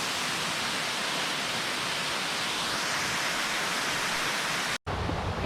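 Steady rush of a waterfall, an even hiss of falling water; it cuts off abruptly near the end.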